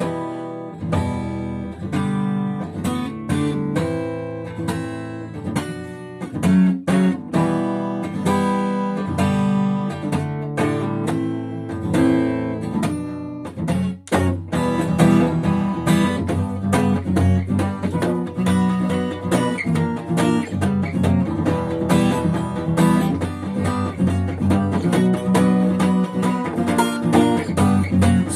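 Acoustic guitar playing a song's instrumental intro, with a brief pause about halfway and fuller strumming after it.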